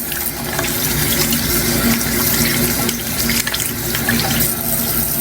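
Water running steadily from a tap into a sink, most likely for hand washing before cooking.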